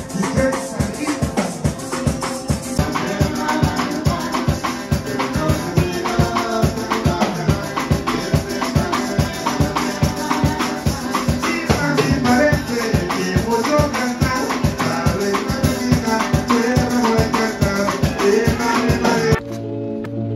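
Upbeat parang-style band music with a steady beat: strummed acoustic guitar and drums with a shaker rattling along. About a second before the end it gives way to held, organ-like chords.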